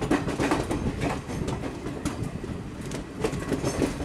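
Indian Railways passenger coach running, heard from aboard beside its side: a steady low rumble with an irregular clatter of wheels over rail joints.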